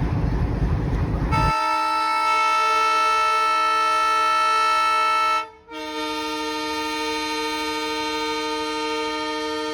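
Diesel locomotive multi-tone air horn sounding a long steady chord, starting about a second and a half in. It breaks off for a moment past the middle, then sounds again. Before the horn there is a loud low rumble.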